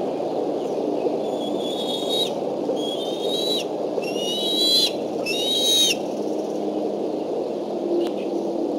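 Juvenile bald eagle calling: four high-pitched calls of just under a second each, one after another from about a second in, over a steady low background noise.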